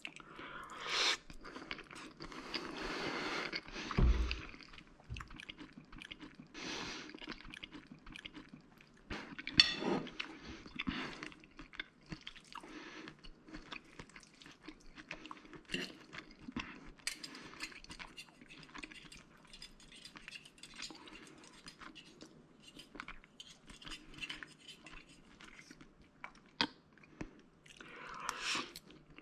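Eating spaghetti with prawns up close: chewing, with a fork and spoon scraping and clicking on the plate now and then.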